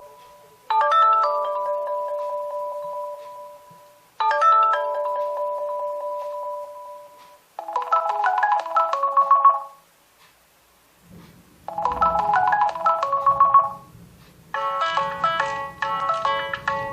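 Nokia 2.2 stock ringtones playing in turn. A bell-like chime sounds twice, each time struck and left to fade. A short, quick melody follows twice, then a fuller, busier melody starts near the end.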